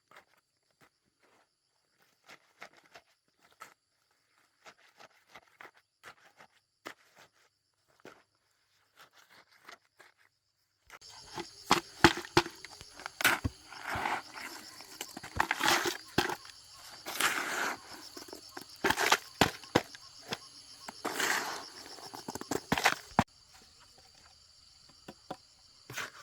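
Scattered knocks and rustles over a steady high insect drone. About eleven seconds in it grows louder and busier, with many knocks and rustling, then drops off suddenly near the end.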